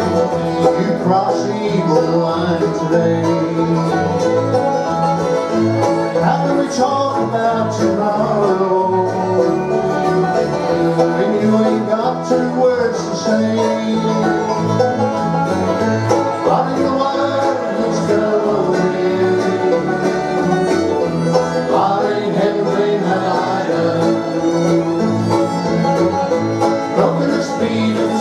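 Bluegrass band playing an instrumental break, with banjo and guitar picking over a steady beat.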